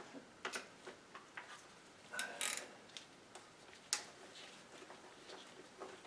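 Ratchet with a 10mm socket tightening the ignition coil's hold-down bolt: faint, irregular clicks and ticks, the sharpest about four seconds in.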